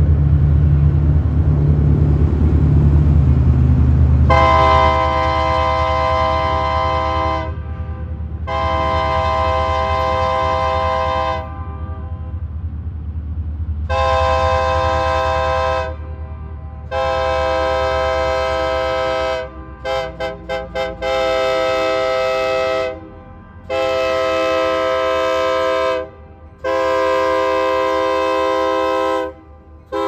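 Union Pacific diesel locomotive's horn giving a salute: a string of long blasts of two to three seconds each, broken about twenty seconds in by a quick run of short stuttering toots, over the low rumble of the approaching locomotives.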